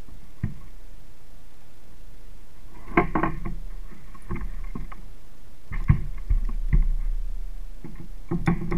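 Short knocks and bumps on the hollow plastic hull of a Sun Dolphin sit-on-top kayak as rod, reel and fish are handled aboard. They come in clusters about three, six and eight seconds in, with a low rumble under the middle cluster.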